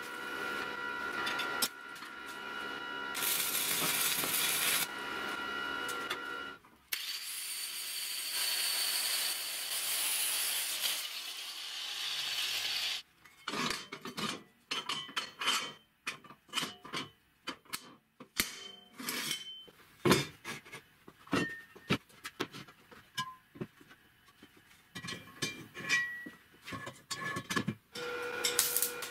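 Electric arc welding on steel square tubing, a steady hiss for the first several seconds and again from about 7 to 13 seconds. This is followed by a long run of sharp metal clicks and knocks as the steel tube pieces are handled and set down. Welding starts again near the end.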